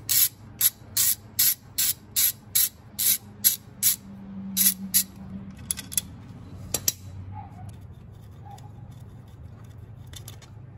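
Ratchet wrench with a 10mm socket loosening a bolt: about a dozen quick rasping clicks of the pawl, one on each back-stroke, about two and a half a second. They stop about five seconds in, giving way to a few scattered clicks and light handling of the tool.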